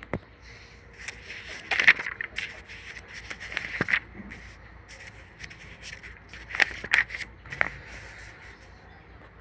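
Paper of book pages rustling and crackling as they are handled and turned, in short scrapes: about two seconds in, near four seconds, and a cluster around seven seconds.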